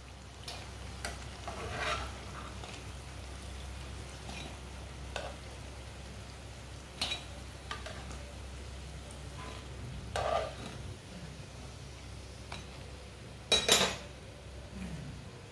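Potato kababs frying in shallow oil with a soft sizzle, with scattered scrapes and clinks of a metal spatula and a wire-mesh strainer against the pan as they are lifted out to drain. The loudest clatter comes near the end.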